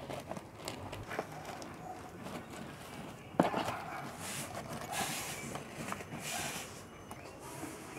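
Thin plastic courier mailer bag being torn open by hand, with crinkling and rustling in several spells and a sharp crack of the tearing plastic a little over three seconds in, against cardboard of the shoe box inside.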